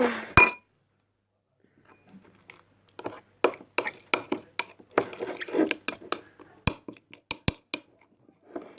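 A spoon stirring slime in a bowl, clinking and scraping against the bowl's side. One sharp clink comes right at the start, then after a short pause a run of irregular clinks, several a second, from about three seconds in.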